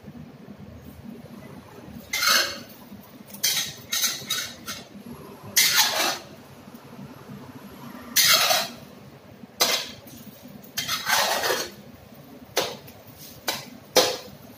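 Metal spatula scraping and clinking against a stainless-steel honeycomb wok as set egg is broken up and stirred. About a dozen separate strokes, some quick and some drawn out, starting about two seconds in.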